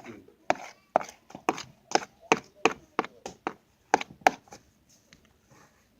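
A spoon knocking against the side of a bowl while slime is stirred vigorously, about three sharp knocks a second, stopping about four seconds in.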